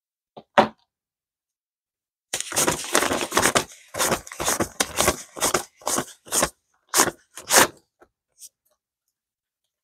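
Paper dollar bills rustling and crinkling as a stack is shuffled and fanned by hand: a quick run of crisp rustles starting about two seconds in, after a small click near the start.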